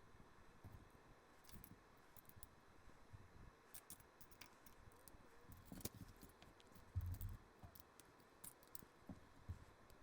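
Faint clicks and light rattles of small LEGO plastic pieces being handled and pressed together, with a soft low thump about seven seconds in.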